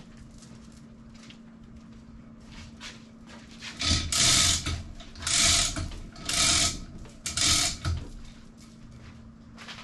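Manual chain hoist being worked under load to lift a sailboat off its trailer: the hand chain rattles through the hoist with a ratcheting clatter in about four pulls, starting about four seconds in.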